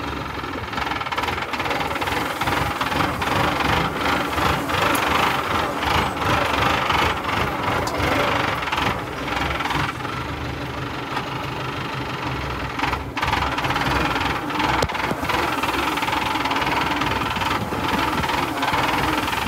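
High-clearance tractor engine running steadily while it drives through sugarcane rows with its weeding cultivator working, with frequent short clatters and knocks from the machine and implement.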